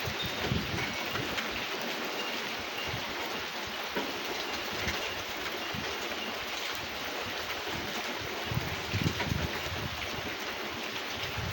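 Steady rain falling in a storm, an even hiss, with a few low buffets near the end.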